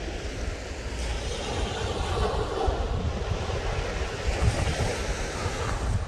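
Small waves breaking and washing up the beach, swelling about two to three seconds in, with wind buffeting the microphone.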